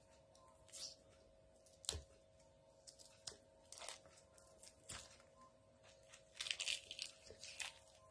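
Pomelo segment membrane and pith being pulled apart by hand: faint, intermittent tearing and crackling, with a sharper click about two seconds in and a busier run of tearing near the six-and-a-half-second mark. A steady faint hum runs underneath.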